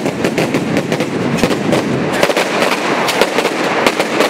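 Firecrackers going off in a rapid, loud string, several sharp cracks a second, typical of a castillo firework tower being burned.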